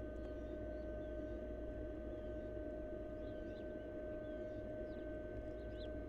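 Steady electrical hum and low rumble from the nest-box camera's audio, with faint short bird chirps scattered through it, several falling in pitch.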